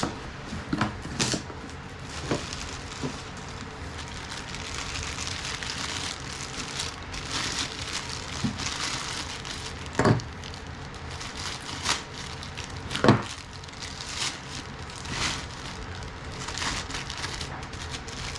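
Plastic packaging crinkling and rustling as gym cable attachments are unwrapped from their box, with several sharp knocks as the pieces are handled.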